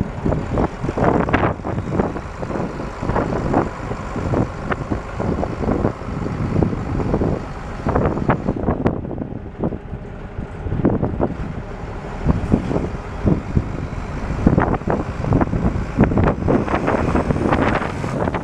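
International DT466 six-cylinder turbo diesel engine running as the S2500 floater truck drives across a field, with irregular loud spikes of noise over it.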